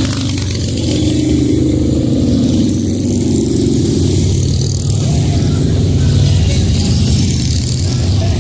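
A group of motorcycles riding past, their engines running with a steady low drone.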